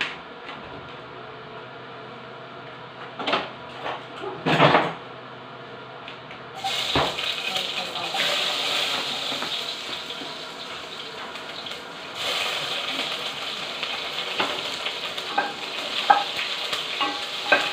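Chopped vegetables and greens dropped into hot oil, starting to sizzle about a third of the way in, with the sizzle growing louder again a few seconds later as more go in. Before the sizzle starts, a few clatters of a spatula.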